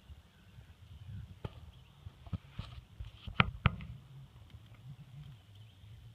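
Horse moving about with no coughing: a handful of sharp knocks, the loudest two close together about three and a half seconds in, over a low steady rumble.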